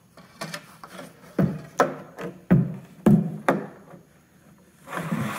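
Hollow knocks from a plastic diesel-heater fuel tank being bumped and handled: about five sharp, drum-like knocks between one and four seconds in. Near the end comes a scraping rub as the tank moves on the workbench.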